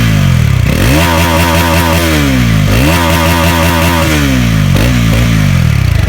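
Bajaj Pulsar NS400Z's single-cylinder engine revved through its exhaust: two long revs, each climbing quickly and falling slowly back toward idle, then two short throttle blips near the end.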